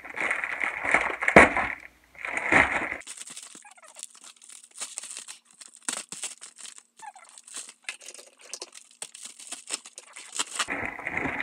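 Padded plastic mailer being torn open and crinkled, loudest for the first three seconds, then lighter crackling and sharp crinkles as it is handled.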